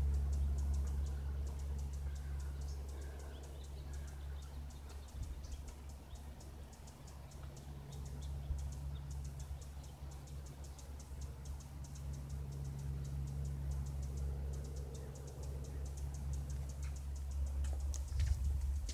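Low steady drone of a Cessna light aircraft's engine and propeller in the distance, fading over the first few seconds and then holding faint, with fast faint ticking over it and a few knocks near the end.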